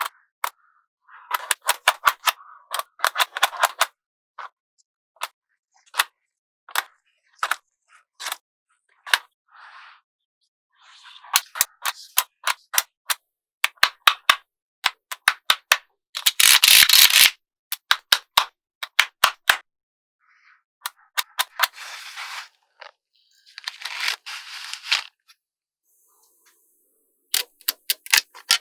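Small magnetic balls clicking and snapping together one at a time, with several bursts of dense rattling as groups of balls are pushed or rolled together. The clicks come irregularly, with short silent pauses between them.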